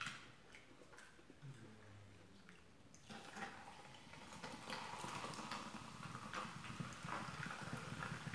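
Soda poured from a can into a glass, fizzing with a faint hiss and fine crackle of bursting bubbles, starting about three seconds in.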